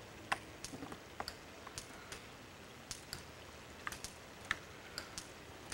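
A young chimpanzee drinking from a bottle held to its lips: soft, wet lip-smacking clicks, about a dozen at irregular intervals.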